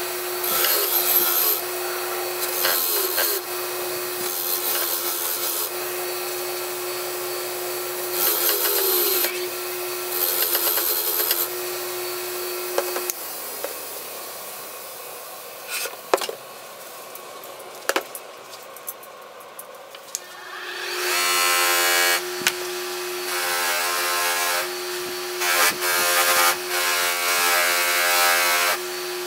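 Bench grinder running with a steady hum while a steel bar is pressed against its wire wheel in repeated bursts of scratchy brushing. About halfway through the hum drops away for several seconds, broken only by a couple of clicks. Then the grinder runs again and the steel is pressed against a buffing wheel in short spells.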